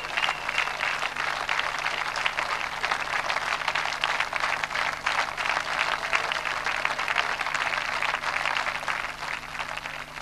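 Audience applauding at the end of a concert: dense clapping that fades out near the end, over a steady low hum.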